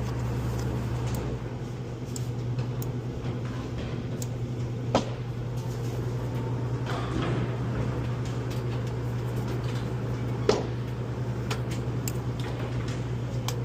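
A steady low mechanical hum, with a deeper layer of it cutting off about a second and a half in. Two sharp knocks, about five seconds apart, stand out over it.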